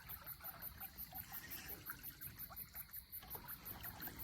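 Quiet river water lapping and trickling against the hull of a drifting fishing boat, with small irregular splashes and knocks. A steady, high insect trill pulses several times a second.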